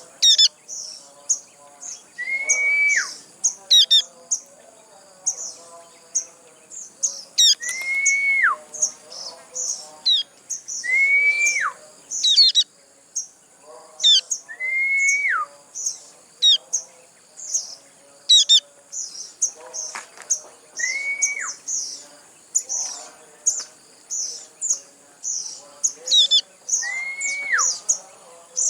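A young sogon bird chirping rapidly and insistently, the begging calls of a fledgling wanting food while it is hand-fed. Every few seconds a lower whistled note holds and then drops away, over a faint steady high tone.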